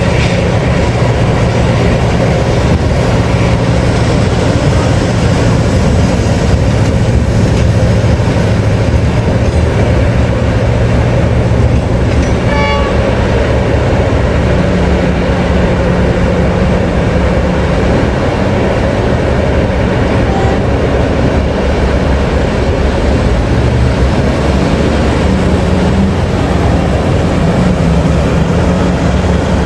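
Heavy diesel engines of a mining excavator and haul truck running at work: a loud, steady drone whose low tones rise and fall as the engines are worked.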